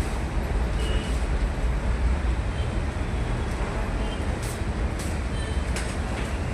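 Steady low rumble of background traffic-type noise, with a few sharp clicks about four and a half to six seconds in.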